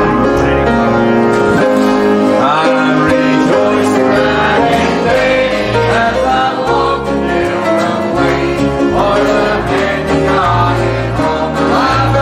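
Music: a song with singing over an instrumental accompaniment.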